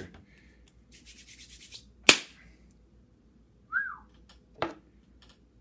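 Chalked hands rubbing together with a dry hiss, then a sharp loud clap about two seconds in. A short whistled note rises and falls, then a second clap follows.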